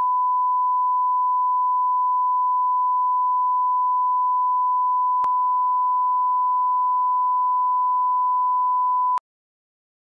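Steady test tone, a single pure pitch, played with video colour bars as a line-up reference signal; it cuts off suddenly about nine seconds in.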